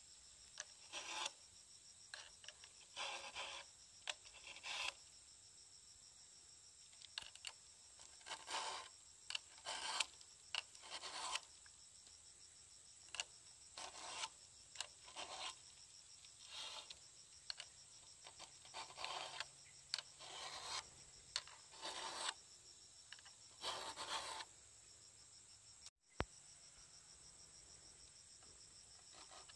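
Round file being pushed by hand across the cutting teeth of a Stihl 070 chainsaw chain to sharpen it: faint rasping strokes, one at a time, about one a second, with short pauses between runs.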